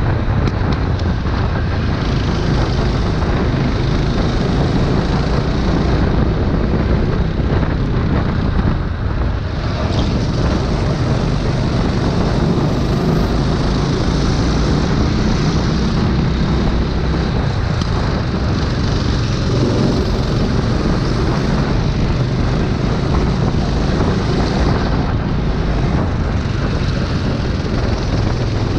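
Go-kart engine running at racing speed, heard from on board the kart, with steady wind rush on the microphone.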